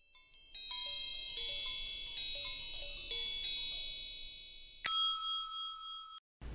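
Logo jingle of shimmering chime tones: many high bell-like notes pile up over about four seconds above a few soft lower notes, then a single bright strike near the end rings out and cuts off abruptly.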